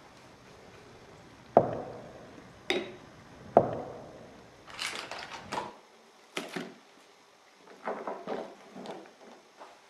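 Three sharp knocks of hard objects on a wooden worktable in the first few seconds, then bouts of paper rustling and rubbing as the paper is handled and smoothed down.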